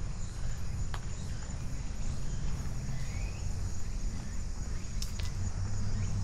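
Footsteps of a person walking outdoors, with insects trilling steadily in the background. A few sharp clicks sound about a second in and twice close together around five seconds.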